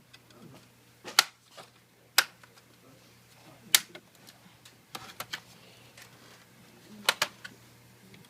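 Plastic snap clips of a Samsung NP300E5C laptop case clicking loose as a prying tool works along the seam: sharp single clicks every second or so, with a quick double click near the end.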